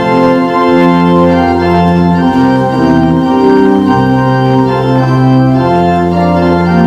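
Organ playing slow, sustained chords over held bass notes.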